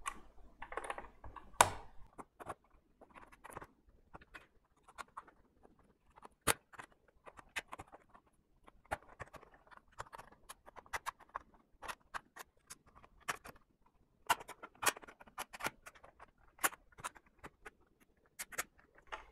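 Irregular sharp clicks, snaps and scraping of plastic as the snap-fit casing of a PlayStation 4 power supply is pried apart, with a few louder snaps among the lighter clicks.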